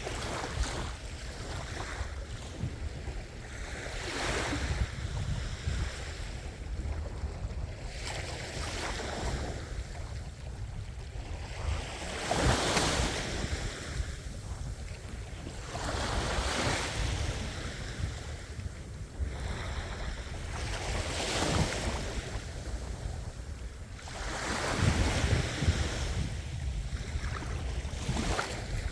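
Ocean waves breaking and washing ashore, a surge swelling every four or so seconds over a steady low rumble, with wind buffeting the microphone.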